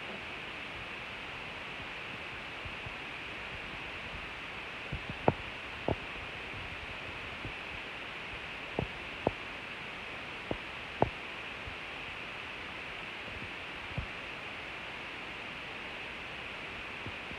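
Steady background hiss with about eight short, soft knocks or taps scattered through the middle stretch; the loudest come about five and eleven seconds in.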